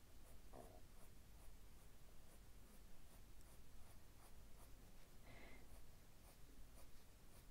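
Faint scratching of a Prismacolor coloured pencil on paper, laid down in a steady run of short shading strokes.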